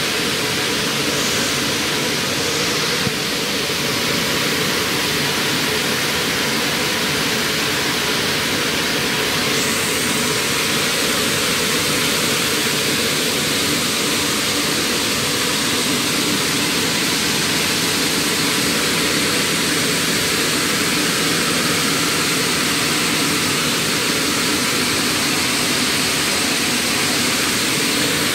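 FGD gypsum vacuum belt filter running: a loud, steady rushing hiss with a low machine hum beneath.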